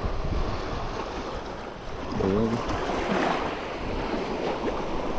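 Small waves breaking and washing steadily over a shallow rocky reef shelf.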